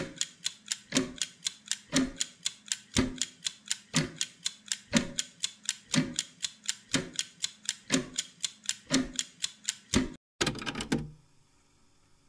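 Steady clock-like ticking, about four sharp ticks a second with a heavier, deeper tick on every second. It cuts off suddenly about ten seconds in; a brief burst of sound follows, then near silence.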